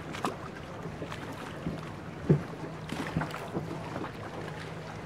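A gondola being rowed on open water: the canal water lapping and splashing against the wooden hull, with scattered small knocks and a steady low hum underneath. One dull thump, the loudest sound, comes a little over two seconds in.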